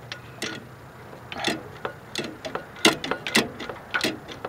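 Uneven light metal clicks and taps, about one every half second, from spark plugs and hand tools being handled during a spark plug change.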